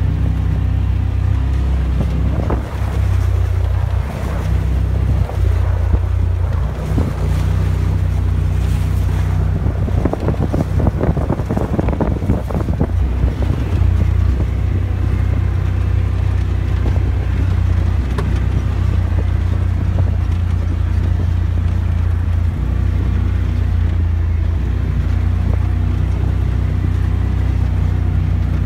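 Polaris RZR XP 1000 side-by-side's twin-cylinder engine running steadily, heard from inside the cab while driving. Irregular knocks and rattles come through between about two and fourteen seconds in.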